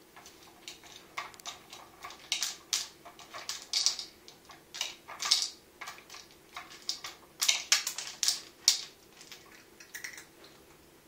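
A plastic cat-food puzzle toy being worked by cats: its rotating tubes rattle and dry kibble clicks inside them and drops onto the plastic tray, in irregular clicks and rattles several times a second.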